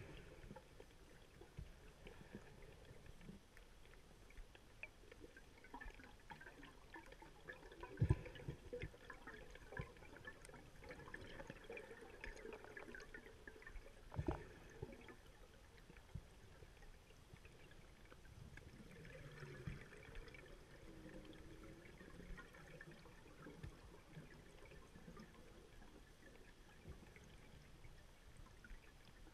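Faint underwater ambience through a diving camera's housing: low water noise with gurgling, like bubbles. Two sharp knocks come partway through, several seconds apart.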